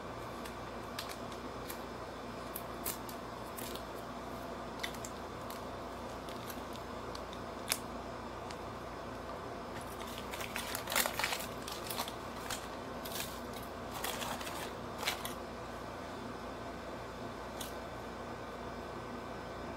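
Crinkling and tearing of a small sachet as it is handled and opened by hand: scattered light clicks, then a cluster of louder crinkles about ten to fifteen seconds in, over a steady low hum.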